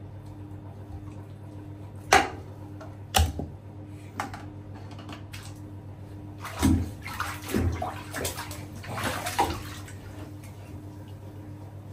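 Water splashing in a bathtub: single splashes about two, three and four seconds in, then a busier run of splashing in the middle and later part, over a steady low hum.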